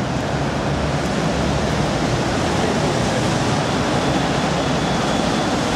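A steady, even wash of street noise with no single distinct sound standing out.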